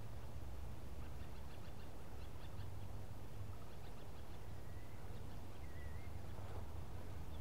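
Faint birdsong in bushland: a few short high chirps starting about a second in, then a thin whistled note around five seconds in, over a steady low background rumble.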